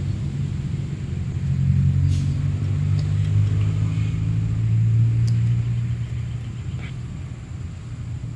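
Low, steady mechanical drone with a hum, fading over the last couple of seconds, with a few faint clicks.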